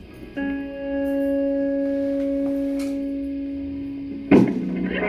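Electra electric guitar: a single note picked about half a second in and left to ring, fading slowly for nearly four seconds, then another note struck sharply near the end.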